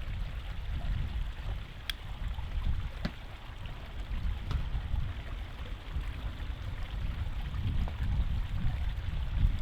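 Wind buffeting the microphone: an uneven low rumble over a steady hiss, with a few faint clicks.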